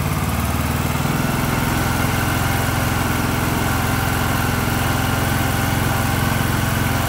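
Briggs & Stratton 19.5 hp single-cylinder engine of a John Deere LA115 lawn tractor running steadily at an even speed with the choke off, on a freshly fitted aftermarket carburetor.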